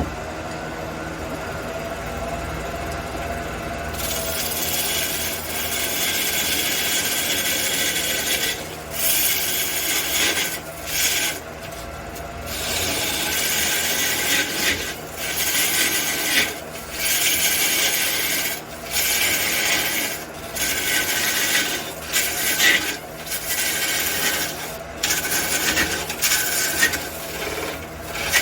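Wood lathe turning a large red cedar piece, its motor humming steadily. From about four seconds in, a tool rasps against the spinning wood, then works in repeated passes of a second or two with short breaks between them.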